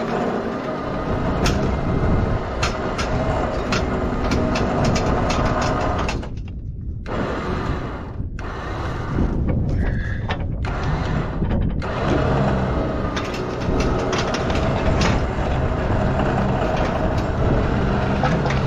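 A heavy vehicle's engine running steadily, with scattered sharp metallic clicks and knocks over it.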